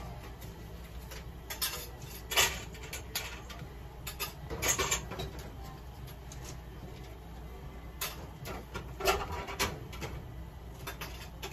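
A comb drawn through a cat's fur in short, scratchy strokes at irregular intervals, about eight of them, the loudest about two and a half and five seconds in, over a low steady hum.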